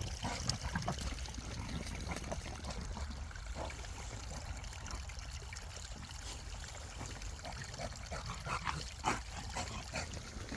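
Rainwater run-off flowing downhill, trickling and splashing unevenly over a steady low rumble.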